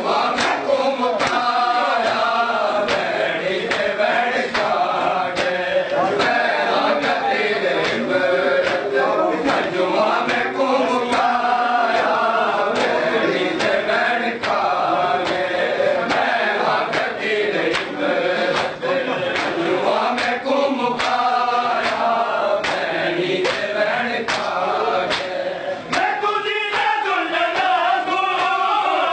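A group of men chanting a noha together in unison. Repeated sharp slaps of hands on chests (matam) beat time under the singing.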